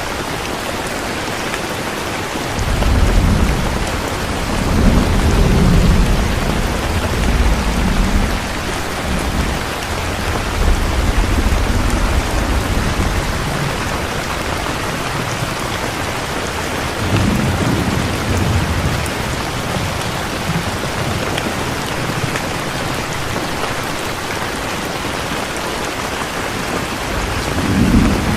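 Steady rain with rolling thunder: low rumbles swell about three seconds in and last several seconds, come again around seventeen seconds, and once more near the end.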